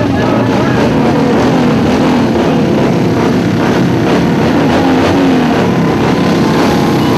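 Motorcycle engines running, a loud steady engine noise with no break.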